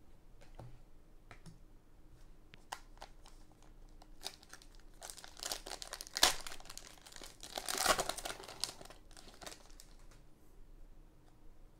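A trading-card pack's foil wrapper being torn open and crinkled, the crackling loudest from about five to nine and a half seconds in, after a few light ticks of cards being handled.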